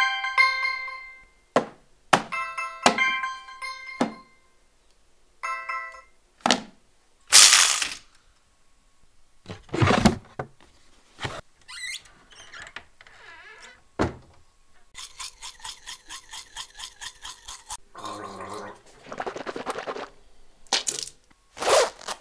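A string of separate short sounds cut one after another. It opens with a few ringing, chime-like pitched tones, followed by sharp knocks and clicks and several brief rushing noise bursts. Further on comes a quick run of even pulses, about four or five a second, lasting about three seconds.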